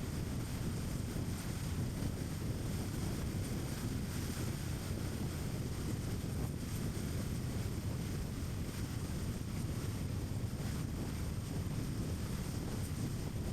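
Car driving at a steady speed: a steady low rumble of tyre and road noise.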